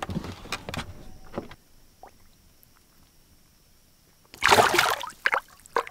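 Small fish released by hand into the lake: a few knocks and handling clicks, a quiet spell, then a sudden splash and slosh of water about two-thirds of the way in.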